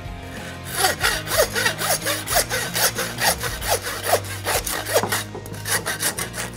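Hand bone saw cutting through a venison shank bone to take off the top of the hock, with quick, even back-and-forth strokes starting about a second in.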